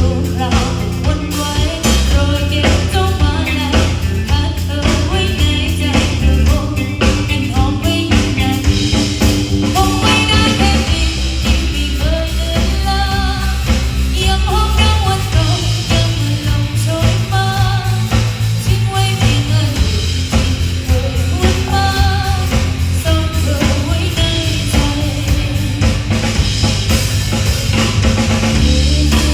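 Live band playing a song: drum kit, bass guitar and electric guitar, with a voice singing over them.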